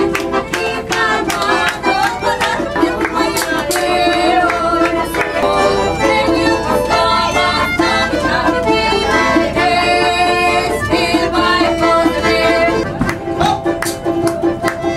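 Live Russian folk music from a small ensemble: a fast tune of quick, short string notes, with diners clapping along at the start.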